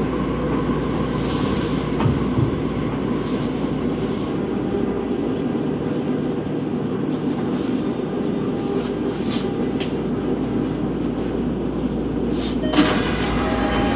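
In-car running noise of a Toei 12-600 series linear-motor subway train: a steady rumble of wheels and motor as the train nears a station. A few sharp clicks and faint steady tones come in near the end.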